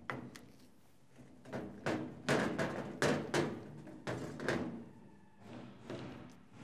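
Construction work in the next room: irregular thumps and bangs from doors being installed, about a dozen knocks spread over the first five seconds.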